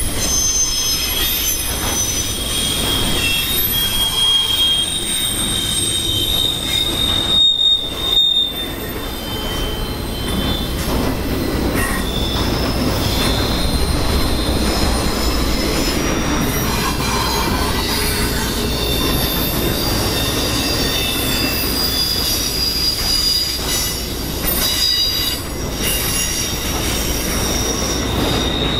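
Double-stack intermodal freight train rolling past: a steady low rumble from the cars under several high, thin wheel squeals that shift in pitch as the cars go by.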